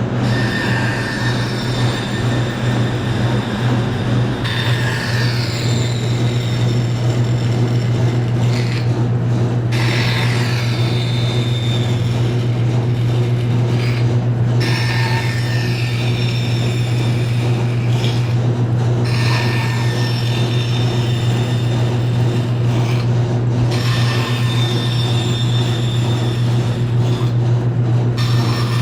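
Woodworking bandsaw running with a steady motor hum while its blade cuts wood, making a series of short relief cuts. The higher cutting noise comes and goes in stretches of a few seconds, with brief breaks between cuts.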